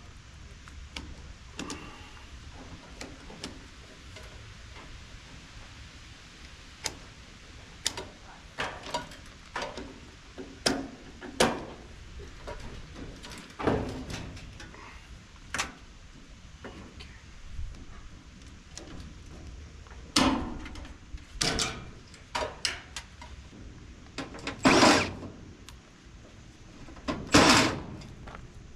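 Irregular clicks, knocks and clanks of metal parts being handled while a clothes dryer is taken apart, with a few louder, longer clanks in the last third.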